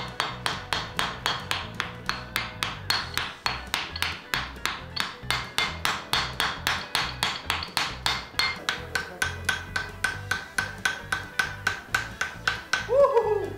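Hand hammer forge-welding a white-hot axe blade into the axe body on a steel anvil: fast, even blows, about four or five a second, each with a short ring from the anvil. Near the end there is a brief, loud falling squeal.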